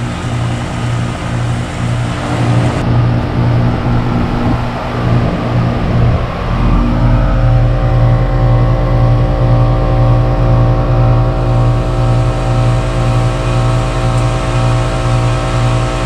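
A 2008 Goodman GSH13 heat pump's outdoor unit running in heat mode shortly after startup: a steady compressor and fan hum with a pulsing low drone. More steady tones join in about six seconds in.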